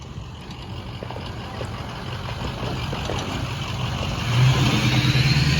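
A truck approaching along the street, its engine growing steadily louder and loudest near the end.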